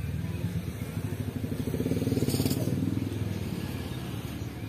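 A motor vehicle's engine running, growing to its loudest about two seconds in and then fading away, as when a vehicle passes. A brief hiss about two and a half seconds in.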